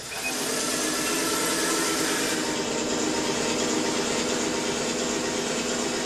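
RC model tank running, its ASP sound unit playing a steady simulated tank-engine sound through the onboard speaker while the model drives. The sound shifts slightly about two seconds in.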